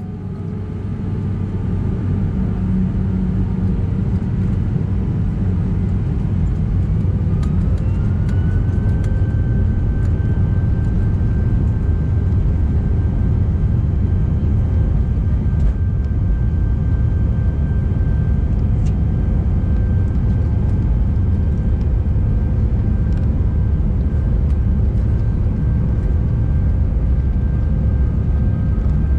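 Inside the cabin of an Airbus A319, its IAE V2500 turbofans spool up to takeoff power. A low rumble builds over the first couple of seconds. A whine rises in pitch a few seconds later, then holds steady over the loud, even engine noise as the takeoff roll begins.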